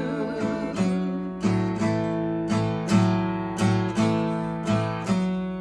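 Guitar strumming chords in a steady blues rhythm, about two strums a second.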